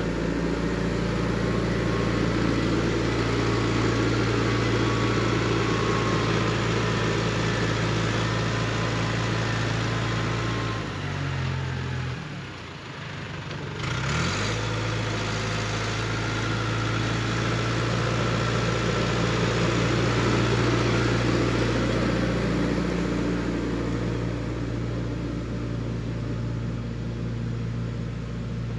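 Diesel engine of heavy construction equipment running steadily. About halfway through its note falls away for a couple of seconds, then climbs back up.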